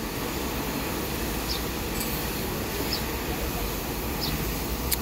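Steady low rumble of shipyard machinery, with faint short high chirps repeating about every second and a half and a sharp metallic click near the end.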